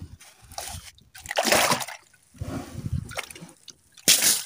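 Sea water splashing in several short bursts as a freshly caught squid is hauled out of the water, the loudest splash near the end.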